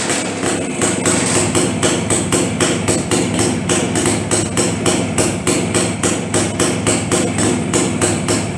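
1958 BSA Bantam D5's single-cylinder two-stroke engine idling with an even, rhythmic beat of about five pulses a second, running smoothly on a newly fitted CDI electronic ignition.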